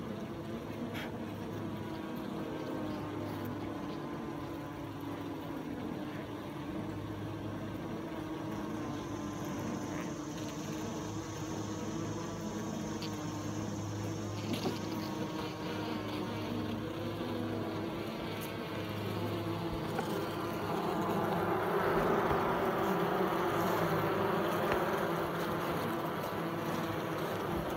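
Many Italian honey bees buzzing close up on the comb, a steady hum that grows louder about three-quarters of the way through.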